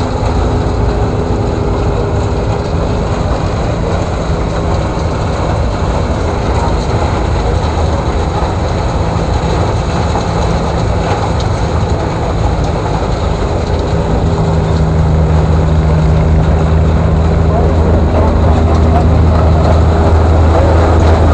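Antique corn husker-shredder running steadily under power from a horse-drawn sweep, its cutting cylinder and blower turning with a continuous low hum while it chops and blows out corn stalks. The hum grows louder and steadier about two-thirds of the way through.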